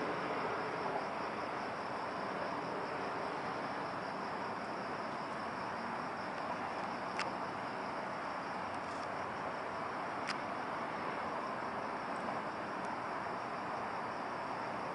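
Crickets chirping steadily in a high, even band over a constant background hiss, with two faint sharp clicks around the middle.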